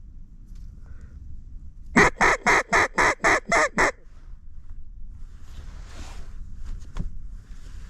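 A duck call blown in a quick run of eight loud quacks, about four a second, calling to passing ducks.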